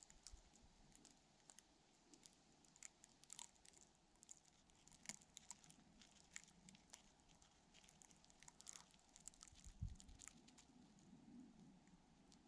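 Near silence with faint, irregular soft ticks and crackles scattered throughout.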